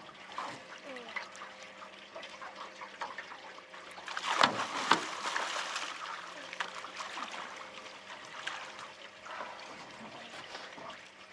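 A snagged paddlefish (spoonbill) thrashing at the surface alongside the boat, splashing water, with the loudest burst of splashing about four and a half seconds in.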